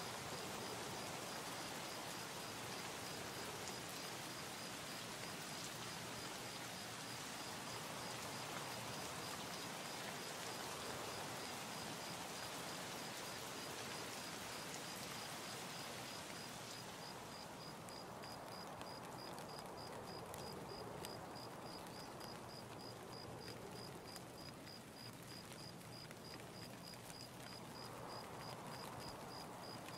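Steady low-level hiss of background noise, with a faint high-pitched tone pulsing at an even rate; the hiss turns duller a little past halfway.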